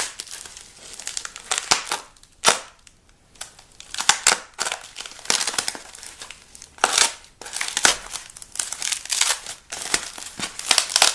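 Packaging being handled and torn open by hand: irregular crinkling, rustling and tearing of wrapping around small boxes holding replacement transformers.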